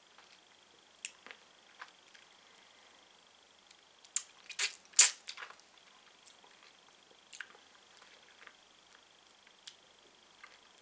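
Wet mouth sounds from sucking a Toxic Waste sour hard candy: scattered short lip smacks and tongue clicks, with a cluster of louder smacks about four to five seconds in.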